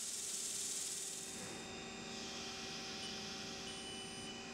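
Haas CNC lathe running while it bores soft chuck jaws: a steady hiss of flood coolant over a low, even hum. The highest part of the hiss eases about two seconds in.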